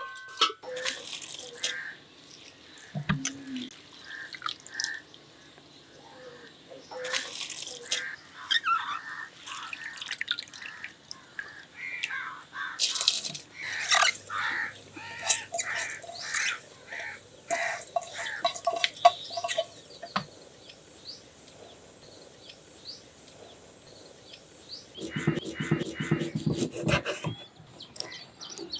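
Water splashing and dripping as soaked rice is tipped from a bowl into a pot of biryani gravy, with birds chirping in the background.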